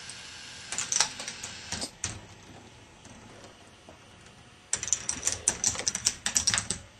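K'nex ball machine clicking and clattering, plastic balls and parts knocking against the plastic track. A handful of sharp clicks come about a second in, then a fast, busy run of clicks fills the last two seconds before the sound cuts off.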